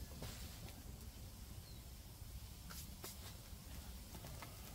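Wood campfire crackling faintly, with a few sharp clicks and pops about two and a half to three seconds in and again near the end.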